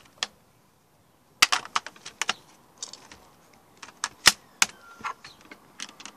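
AA batteries and the plastic battery compartment of a Nerf Elite XD Stryfe blaster being handled: a run of irregular sharp clicks and clatter.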